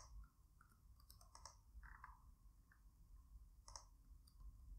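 Near silence with a few faint, scattered clicks from a computer keyboard and mouse.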